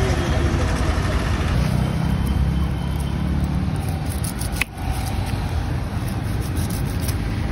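Steady rumble of road traffic passing along a busy street.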